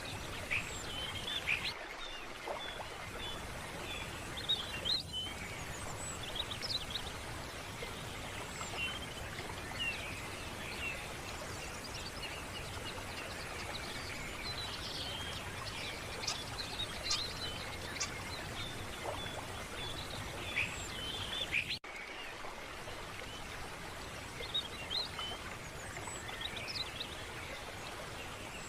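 Many small birds chirping and calling over a steady, even rush of background noise, with a brief dropout about 22 seconds in.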